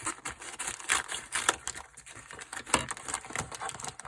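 Irregular clicks, taps and rustling of padlocks and small tools being handled on a surface, with a sharper knock about a second and a half in and another near three seconds in.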